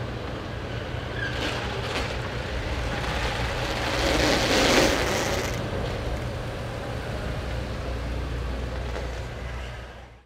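A Bentley Mulsanne driving slowly past on a factory floor: a steady low rumble with a rush of noise that swells about four seconds in and eases off, then fades out at the end.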